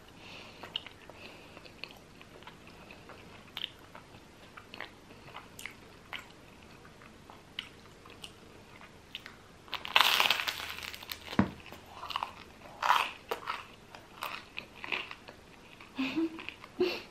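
Eating close to the microphone: faint mouth clicks and quiet chewing, then about ten seconds in a loud crunchy bite into crusty baguette, followed by crunchy chewing.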